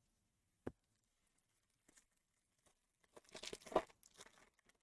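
Faint crinkling and tearing of a foil baseball-card pack wrapper being ripped open, in a short cluster past the middle, after a single light tick about two-thirds of a second in.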